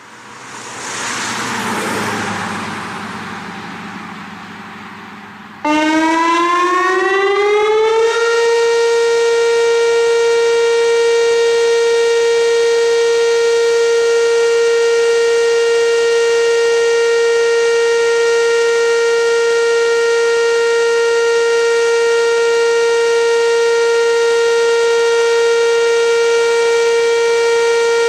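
A rushing noise swells and fades. About five and a half seconds in, a Whelen WPS 2810 electronic siren cuts in abruptly: its pitch rises for a couple of seconds, then holds one steady tone as the siren's scheduled monthly test.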